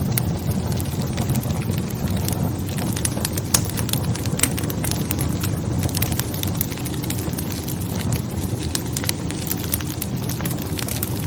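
Wood fire burning in a fireplace: a steady low rumble of flames with irregular sharp crackles and pops of burning logs.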